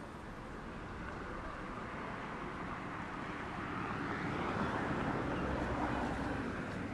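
A vehicle passing on a city street: a rushing noise that builds over the first few seconds, is loudest about five seconds in, then eases a little.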